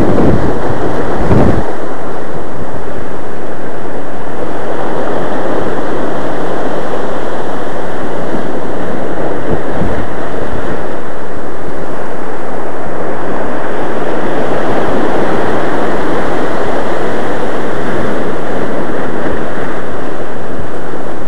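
Ocean surf washing and breaking over rock ledges, a loud continuous rush, with wind buffeting the microphone in heavy low gusts during the first second and a half.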